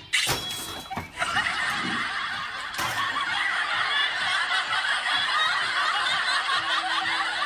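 Many people laughing continuously, starting about a second in, like an added laugh track; a sharp impact sounds just before it.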